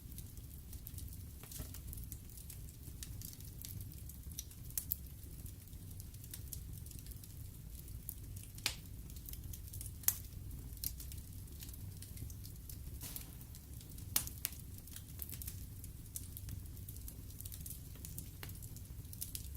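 Wood fire burning in a fireplace: logs crackling with scattered sharp pops over a low steady rumble of flames, the loudest pops about ten seconds in and again around fourteen seconds.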